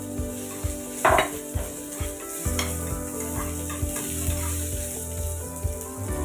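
Food frying and sizzling in a pan while a utensil stirs and scrapes against it, with a sharp clank about a second in and lighter knocks after.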